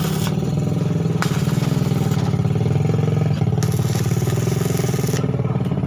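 A small engine or motor running steadily with a fast, even rumble.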